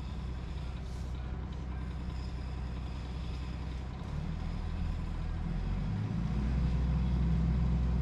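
A heavy engine running steadily, its revs and loudness rising partway through and settling at a higher, louder hum for the last couple of seconds.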